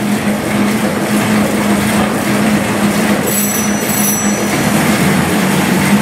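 1965 Sisson steam engine running steadily: a dense, even noise over a steady low hum. Two short high squeaks come about three seconds in.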